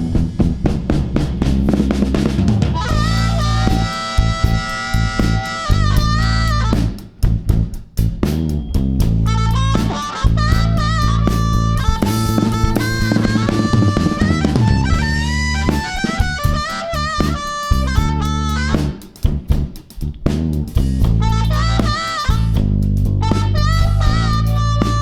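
A blues band playing an instrumental break: drum kit with snare and rimshot hits, a steady bass line, and a lead instrument soloing in held, bending notes.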